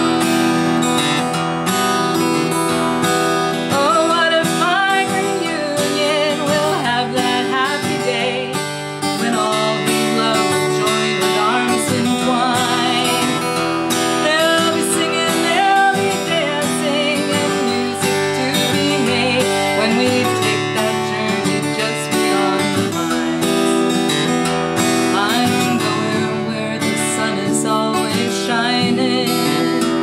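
A woman singing a folk song while strumming an acoustic guitar.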